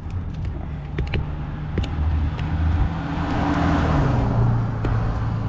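A motor vehicle going past, its noise swelling to a peak about four seconds in and then fading, while its low engine hum drops in pitch as it passes.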